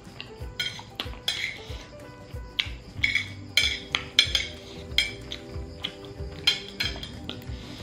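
Metal chopsticks clicking and scraping against a plate as noodles are picked up, a dozen or so sharp clinks at irregular intervals, over steady background music.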